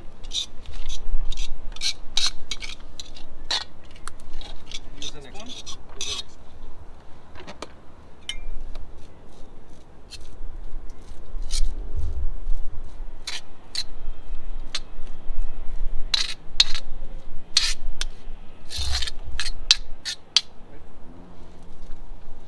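Kitchen utensils scraping and clinking against pots and dishes in an irregular run of sharp clicks and scrapes, busiest in the first few seconds and again near the end.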